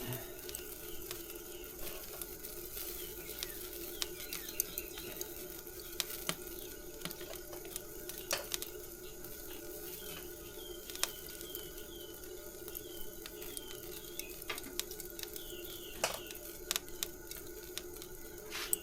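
Light clicks and rattles of thermometer probe cables being handled and untangled, over a steady low hum, with a run of short falling chirps about ten seconds in.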